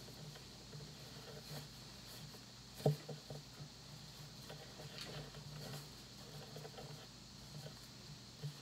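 Faint rustling and handling of a cotton T-shirt as it is folded and tucked into a triangle on a wooden table, with small scratchy sounds and one sharper tap about three seconds in.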